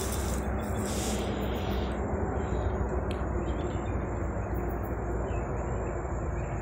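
Wind blowing on the phone's microphone: a steady rumbling noise, heaviest in the low end, with a brief hiss in the first couple of seconds.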